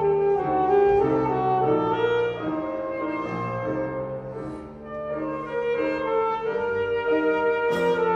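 Solo saxophone playing a legato melody of changing notes, with piano accompaniment underneath; the line softens briefly about two-thirds through, then picks up again.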